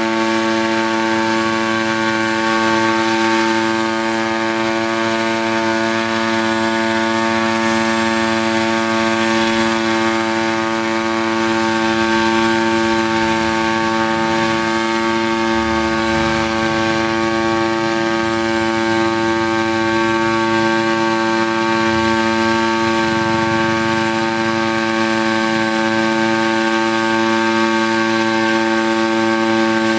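Gas-engine hybrid pentacopter hovering: a loud, steady drone of engine and propellers holding an even pitch.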